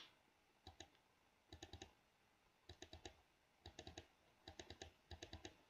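Faint typing on a computer keyboard: short runs of two to four quick key clicks, about one run a second.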